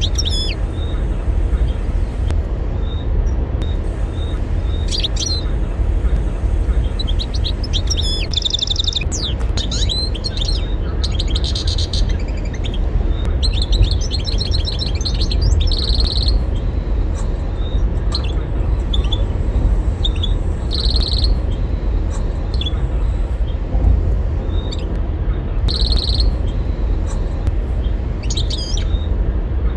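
European goldfinch singing in bouts of quick twittering, trilling notes with short pauses between phrases, over a steady low rumble.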